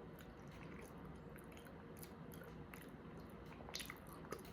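Faint close-up chewing of salmon, with scattered soft clicks, a couple of them louder near the end.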